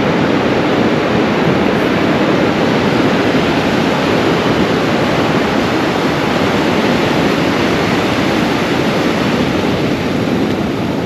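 Ocean surf breaking and washing up the beach, a steady loud rush.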